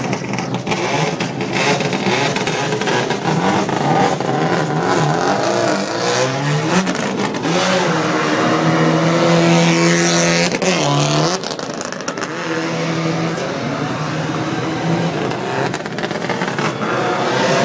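Subaru Impreza rally car's flat-four engine revving hard as the car spins donuts on tarmac, the revs climbing and dropping again and again and held high for a few seconds near the middle, with the noise of its spinning tyres.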